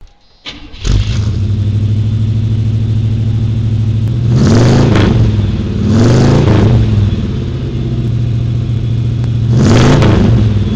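A car engine starts up within the first second and settles into a steady idle. It is then revved three times, each rev rising in pitch and falling back to idle.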